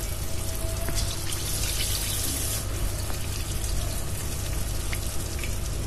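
Batter-coated chicken drumsticks deep-frying in hot oil in a kadai: a steady, dense sizzle and bubbling as more pieces go into the oil for their first fry.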